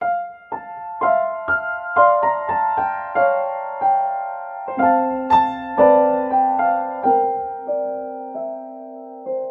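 Piano music: a melody of single struck notes, each ringing on as it decays, thinning out and fading toward the end.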